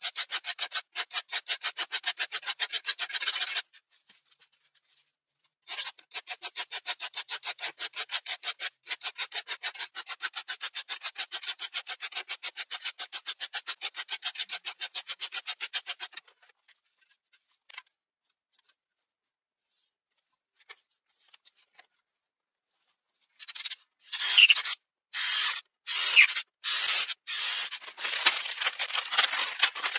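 Hand file scraping along the edge of a steel knife blade made from an old saw blade, in quick, even strokes, several a second. The filing runs in two spells with a short pause about four seconds in. It stops about sixteen seconds in; after a quiet stretch, a louder, uneven run of scraping and rattling comes near the end.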